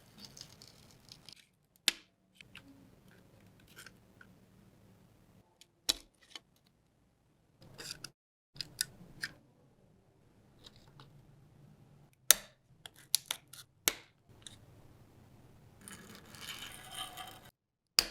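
Small metal parts of a diecast model car clicking and clinking as they are handled, with scattered sharp taps and a longer scraping stretch near the end.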